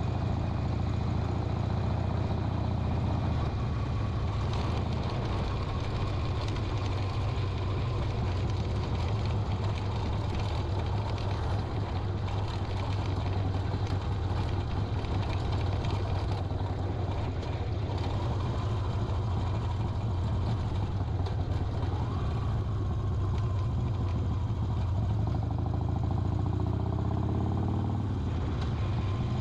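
Harley-Davidson Sportster XL 1200 Custom's air-cooled V-twin engine running steadily, its pitch shifting near the end.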